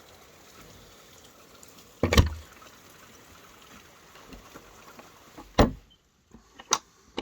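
A few sharp knocks over a faint steady hiss: a loud one about two seconds in, another after five seconds, then lighter ones near the end.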